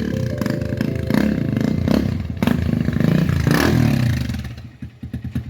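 Cobra motorcycle engine running and being revved up and down, then dropping to an even idle about four and a half seconds in.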